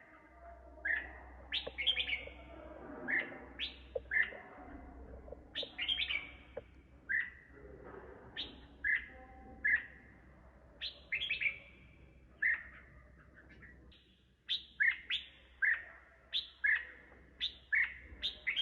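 Red-whiskered bulbul singing: a run of short, bright, quickly varied phrases repeated about every second, with clusters of notes sweeping down from around 4 kHz to 2 kHz.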